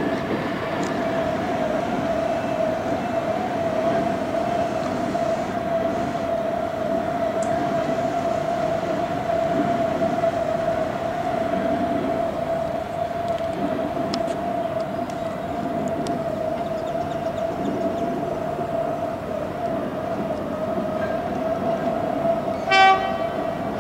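Alstom X'trapolis electric suburban trains running, a low rumble under a steady high whine. Near the end the train gives one short horn toot.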